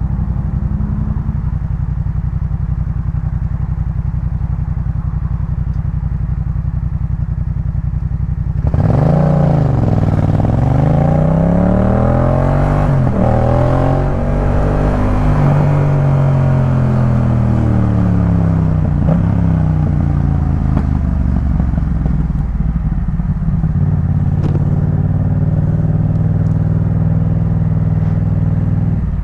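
Yamaha MT-07's parallel-twin engine through a Jeskap K4 full exhaust system, running steadily at first. About nine seconds in it gets suddenly louder and its pitch swings down and up for roughly ten seconds as it revs. It then settles back to a steady, lower running note.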